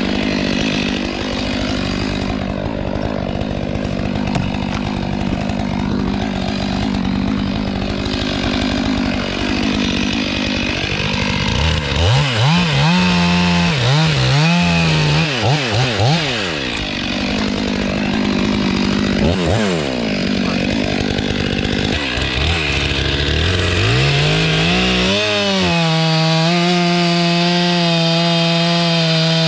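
Chainsaw running at high revs, cutting through dead, dry oak. About halfway through, the engine pitch rises and falls quickly several times as the throttle is worked. Near the end it climbs and holds a steady high pitch.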